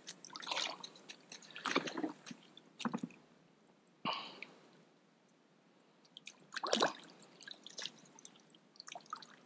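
Hands working a bucket and a landing net in shallow, muddy pond water: a handful of short splashes and sloshes with quiet gaps between them.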